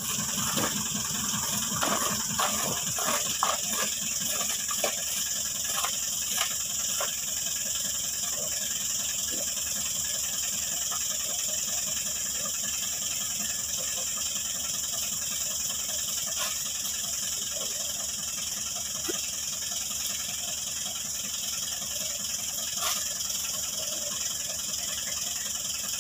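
Farm tractor's engine idling steadily under a steady high hiss. Over it come scattered light clicks and knocks, most of them in the first several seconds, from loose oil palm fruitlets being picked up and dropped into a sack and plastic baskets.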